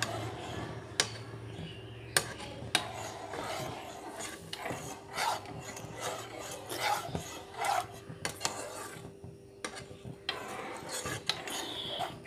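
Metal spoon stirring thickened milk in a metal saucepan, scraping the bottom and sides in repeated strokes. It clinks sharply against the pan a few times in the first three seconds.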